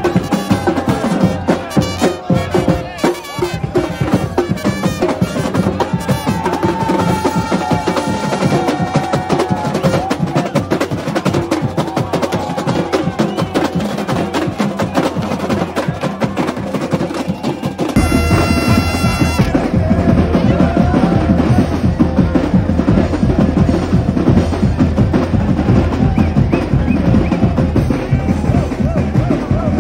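A street drumline of snare drums and other drums plays a fast, dense rhythm without a break. A held pitched note sounds partway through.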